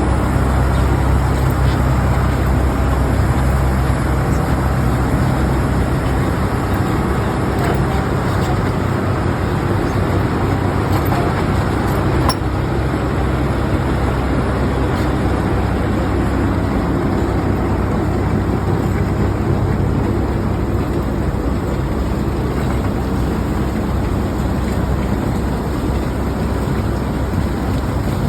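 Wirtgen cold milling machine running steadily while milling asphalt: a continuous low diesel drone under the rough grinding noise of the cutting drum.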